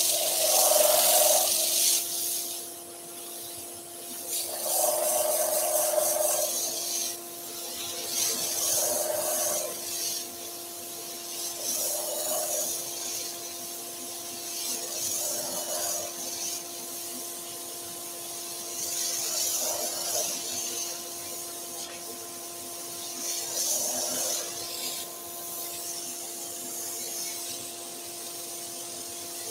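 A wooden workpiece pressed against a spinning abrasive sanding disc on a lathe, grinding away waste wood in about eight short scratchy passes every two to four seconds. A steady hum runs underneath.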